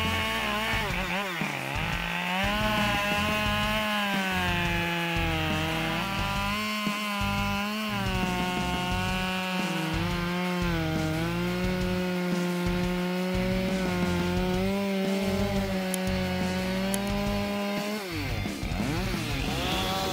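Husqvarna 572XP two-stroke chainsaw cutting through a big block of dry wood at high revs. Its pitch sags briefly about a second in as the chain bites, and falls away near the end before picking up again.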